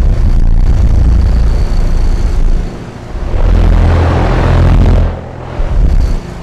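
HVAC system's fan and motor, close-miked: a loud low rumble over a steady hum, which falls away briefly about three seconds in and again near the end before swelling back.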